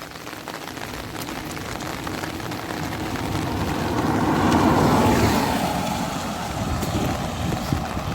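A car passes by on a wet road. The tyre hiss and engine noise build up steadily, are loudest about halfway through, then fade away.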